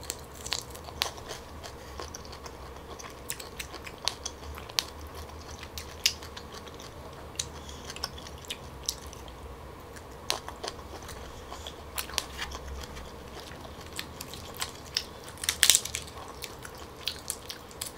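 Close-miked chewing and biting of steamed tiger prawns, with scattered sharp clicks and crackles of shell. About three-quarters of the way through comes a louder burst of cracking as a prawn's shell is pulled apart by hand.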